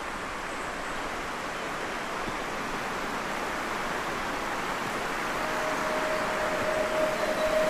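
Steady rushing of wind and lake water around a moving canoe, slowly growing louder, with a steady hum joining about five seconds in.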